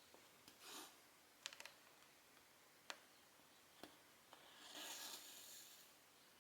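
Faint cross-stitching handling sounds: cotton embroidery thread drawn through the fabric in soft swishes, the longer one near the end, with a few light clicks of the needle.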